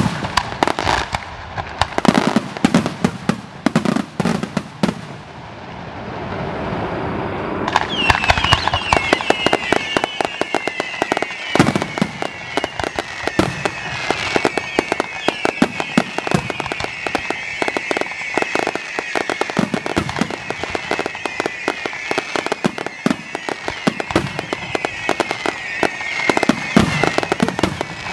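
Fireworks display. At first separate loud bangs of bursting shells, then from about eight seconds in a dense, rapid crackle with high wavering whistles over it.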